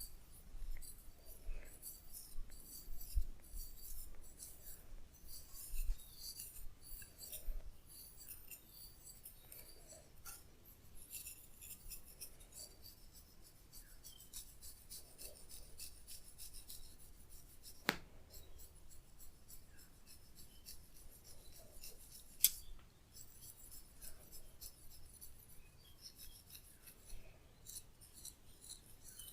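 Hands rubbing and scrunching hair during a head massage: repeated scratchy rustling, with a few soft thumps in the first eight seconds and two sharp clicks about 18 seconds in and about four seconds later.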